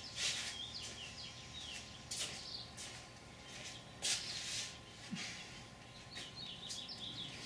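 A few sharp metal clicks and taps from hand work on an engine's bolt hardware, with small birds chirping faintly in the background.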